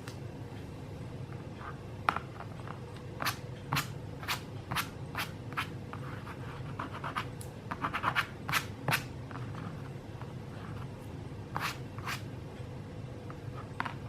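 Hands handling a smartphone and its packaging: a series of sharp clicks and taps with short scrapes, coming about one every half second for a while, then in a quick cluster, then twice more near the end, over a steady low hum.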